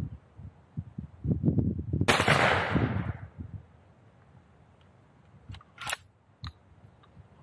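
A single blast from a Benelli Nova 12-gauge pump shotgun firing a heavy dove load, about two seconds in, its report dying away over about a second. Wind buffets the microphone before the shot, and a few sharp clicks follow a few seconds later as the shotgun is handled.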